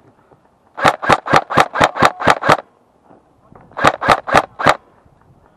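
Airsoft G36 rifle with blowback fired in quick single shots: a string of about eight shots at four or five a second, a pause, then about four more.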